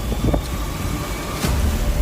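Strong hurricane wind buffeting the microphone as a dense low rumble, with a sharp knock about one and a half seconds in.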